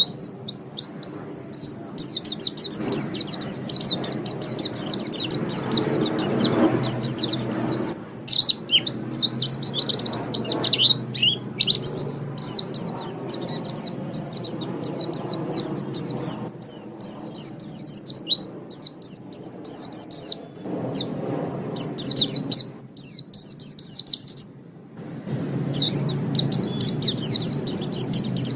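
Pleci (white-eye, Zosterops) singing a rapid, continuous twittering chatter of high, quick chirps, breaking off briefly a few times, the longest pause about three-quarters of the way through.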